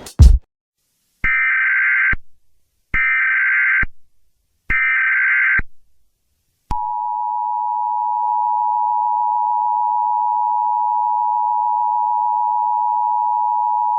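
Emergency Alert System SAME header: three short bursts of screeching data tones about a second apart, followed by the EAS attention signal, a steady two-tone alert beep held for about eight seconds.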